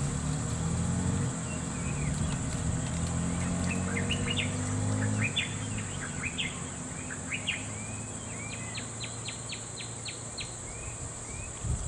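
Birds chirping in short quick calls, with a run of evenly spaced chirps, about three a second, near the end, over a steady high insect buzz. A low hum of idling motorcycle engines underneath weakens about halfway through.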